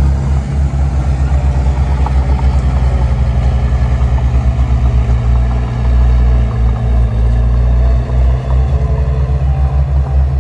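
A heavy earthmoving machine's diesel engine runs steadily, its low note pulsing quickly throughout.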